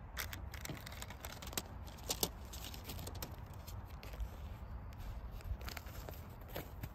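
Paper wrapper of a coffee-bag single being torn open and handled, giving a scatter of crisp crackles and rustles.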